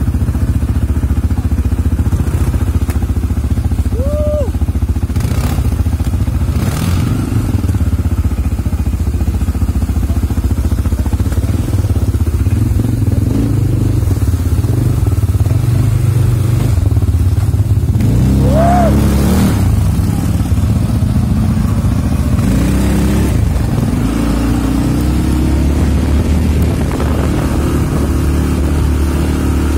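ATV engine running under way, a steady low drone whose pitch rises and falls with the throttle.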